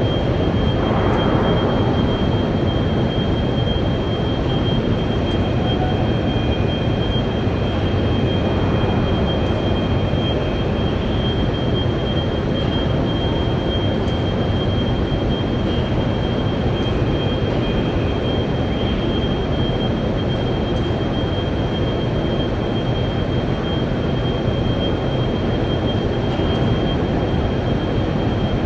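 Steady, loud industrial roar of steelmaking furnace machinery, with a thin, high, steady whine over it.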